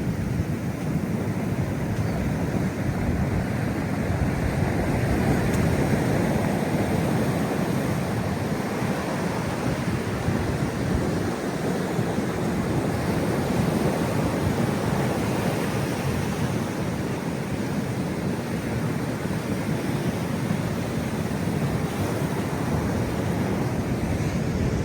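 Ocean surf washing onto the shore in a steady rush, mixed with wind buffeting the microphone.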